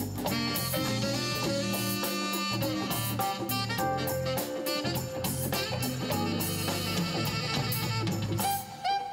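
Live jazz band playing: a saxophone carries the melody over electric bass and drum kit.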